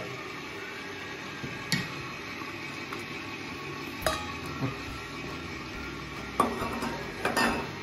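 Electric mixer running steadily at low speed beating eggs, under a few light clinks and scrapes of a small metal cup and silicone spatula against a stainless steel bowl as dry ingredients are tipped in. The knocks are loudest and closest together near the end.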